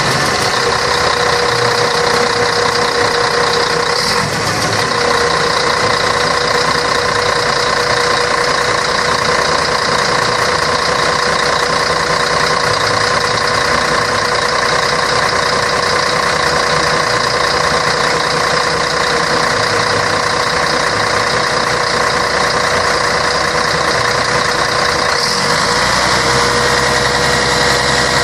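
Scania K113 bus's six-cylinder diesel engine running steadily, a constant rumble with a steady whine over it.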